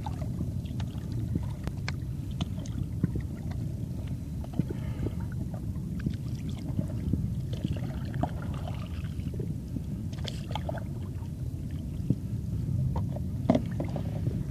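Stand-up paddleboard paddle strokes dipping and dripping in calm seawater, heard through a phone in a waterproof case worn around the neck: a steady muffled low rumble with scattered small clicks and knocks and a few soft splashes.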